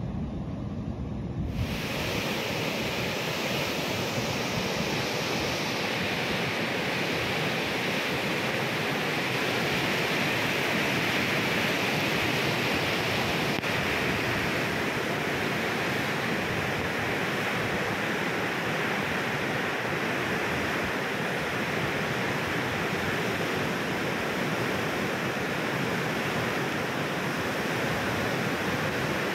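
Heavy floodwater of the Musi river rushing and churning over rocks as steady rapids. The rush cuts in about a second and a half in and holds at an even level.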